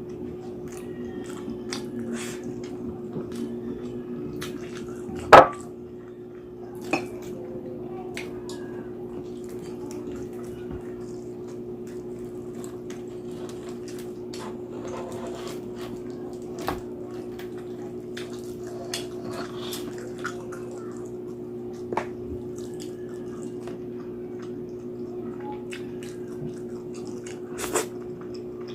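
Close-up eating sounds: wet mouth smacks and crunching of crispy roast pig's head skin, as scattered clicks over a steady low hum. A sharp loud knock comes about five seconds in and a smaller one shortly after.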